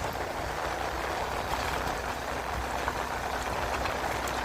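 Steady rush of wind and road noise from a moving motorbike, with a low engine rumble underneath.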